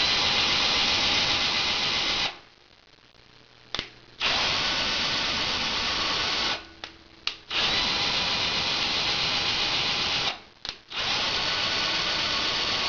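Hand power drill driving a 9x20 lathe's X-axis feed screw, running steadily with a thin high whine. It stops about two seconds in, then starts up again three more times in runs of two to three seconds each, with short trigger blips in the gaps between runs.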